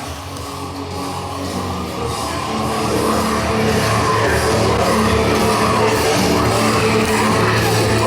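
Heavy rock music with guitars, growing louder over the first few seconds and then holding steady.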